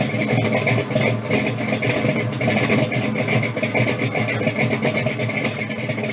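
A 1971 Oldsmobile Cutlass 442's V8 engine running at a steady idle.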